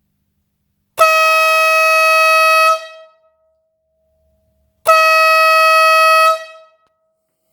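Buffalo Brand 8-inch compressor-fed air horn sounding two loud blasts, each a steady single tone lasting a little under two seconds, with the second starting about four seconds after the first.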